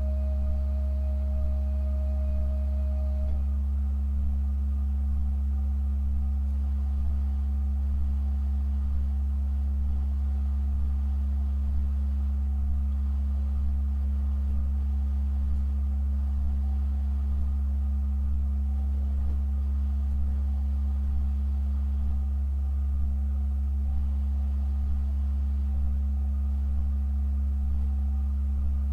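Pipe organ holding a deep, steady low tone with a quieter held tone above it. A higher held note stops about three seconds in, and the low drone carries on unchanged.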